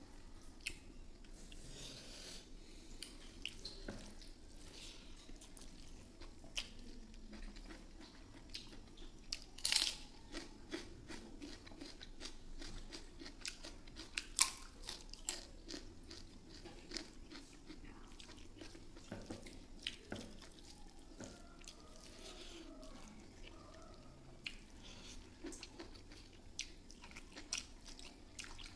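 Close-up eating sounds: chewing mouthfuls of rice and beef innards eaten by hand, with many short clicks, lip smacks and crunchy bites throughout. The loudest crunch, about fourteen seconds in, is a bite of raw green chilli.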